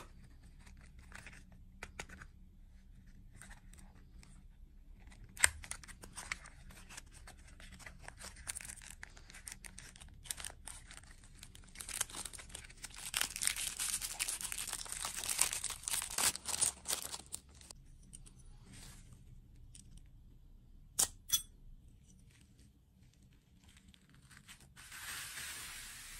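Packaging being opened by hand: a small cardboard candy box and a crinkly plastic wrapper, rustling and tearing, with a longer stretch of plastic crinkling in the middle. A few sharp clicks stand out, the loudest about five seconds in and a pair near the end.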